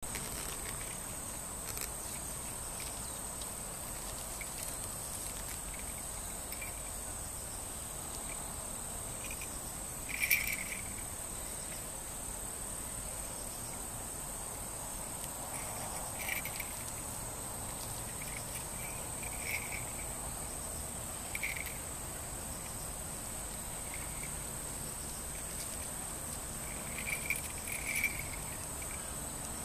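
Insects chirring in a steady high-pitched drone, typical of crickets, with a few short, faint sounds now and then, the loudest about ten seconds in.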